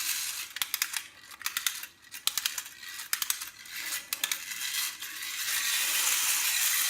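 Tin wind-up biplane toy clicking and rattling in quick, irregular clusters, the sound of its clockwork and tin parts. After about five seconds the clicks give way to a steady hiss.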